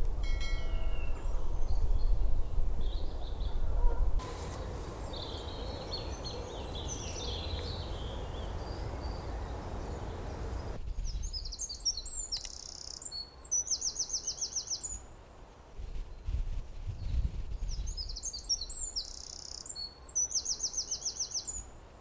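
Songbirds singing: scattered high chirps, then two loud song phrases of rapid, high trills several seconds apart. A low rumble lies under the first few seconds, with a short honking call right at the start.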